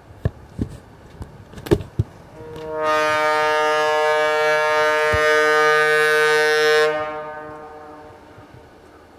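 Diesel locomotive air horn sounding one long blast of about four seconds for the grade crossing, starting about two and a half seconds in and fading away. A few sharp knocks come before it.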